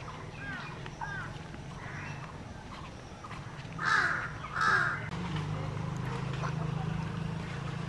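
A crow cawing twice in quick succession, about halfway through, loud and harsh. Faint small-bird chirps come before it, over a low steady hum.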